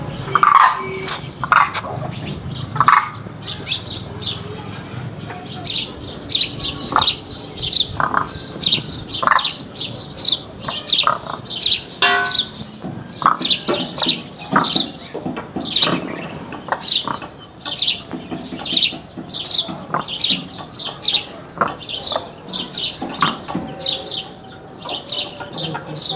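Crane chick peeping: a long run of short, high chirps, each falling in pitch, about two a second. A few lower calls sound in the first few seconds.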